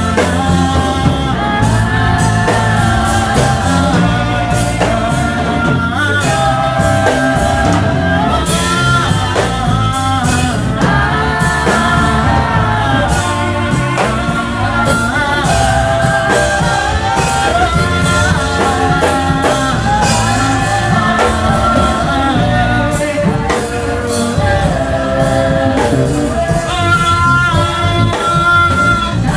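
Christian worship song: voices singing over a full band with a steady beat.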